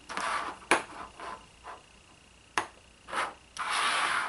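Handling noises from unpacking a small plastic drone: two sharp plastic clicks and several short rustles, the longest near the end.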